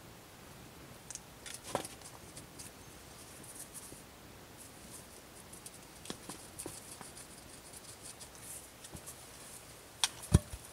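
Faint scraping and small cracking of a wooden stick being worked by hand, with two sharp wooden knocks near the end, the second the loudest.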